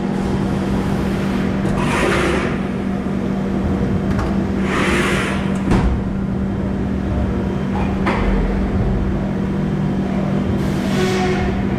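Plastic injection moulding machine running with a steady hum. Three hissing bursts of about a second each are spread across it, with two sharp clicks between them.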